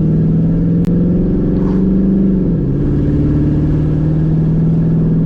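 Chevrolet Camaro's V8 engine running under way, heard from inside the car with the window cracked. The engine note climbs for a second or so, drops sharply about halfway through, then holds steady at a lower pitch.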